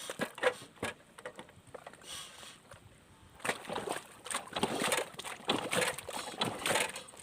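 Irregular sloshing and splashing of wet paddy mud and water, with a sharp knock about half a second in and busier, louder splashing from about halfway through.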